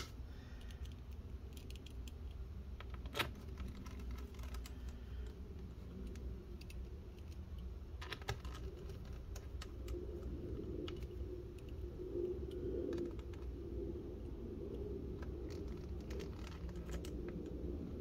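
Small Torx screwdriver driving screws into a laptop's bottom cover: scattered light clicks and taps of the bit and screws against the panel, over a steady low hum.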